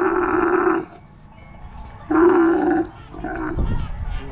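Dromedary camels mating: a camel bellowing in long, steady, pitched calls. One call cuts off about a second in, and a shorter one follows about two seconds in, with weaker grunting sounds between them.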